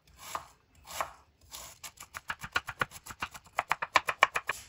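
Kitchen knife chopping cabbage on a wooden cutting board: a couple of slower cuts, then from about a second and a half in a rapid, even run of chops, stopping just before the end.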